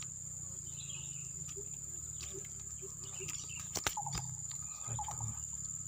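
Insects trilling steadily at a high pitch, with a few sharp clicks about four seconds in.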